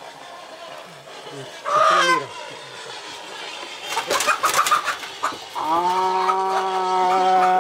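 Chickens clucking and squawking, with a quick flurry of short calls about four seconds in. Partway through, a long steady pitched tone begins and holds.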